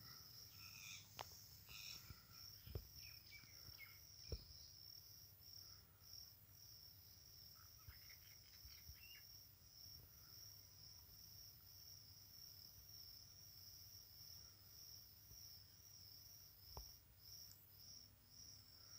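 Faint, steady high-pitched insect trilling that pulses without a break, with a few sharp clicks in the first few seconds and once near the end.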